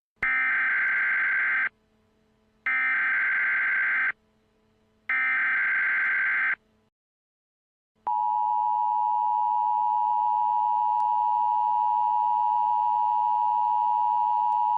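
Emergency Alert System tones. First come three short bursts of the SAME digital header, each about a second and a half long with a second between them. After a short gap, the steady two-tone attention signal starts about eight seconds in and holds, announcing that an emergency alert message follows.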